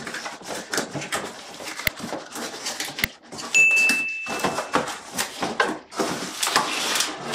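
Cardboard box being pulled open by gloved hands: flaps scraping and rustling, with two sharp clicks and a brief high squeak near the middle.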